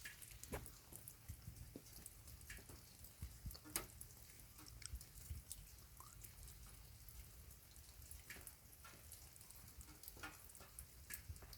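Light rain: scattered raindrops falling at irregular intervals, each landing as a soft tick or tap over a faint steady hiss.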